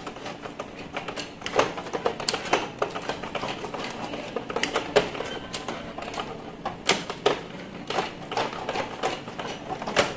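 Irregular plastic clicks and knocks, several a second, from the print-head carriage and internal parts of an Epson L3110 printer being handled and pried at by hand during disassembly.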